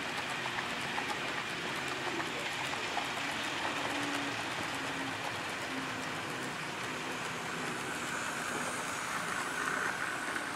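HO-scale model coal train rolling over a model truss bridge: a steady rattle of small metal wheels on the track, with faint clicks. Near the end a thin whine joins in as a model diesel locomotive comes onto the bridge.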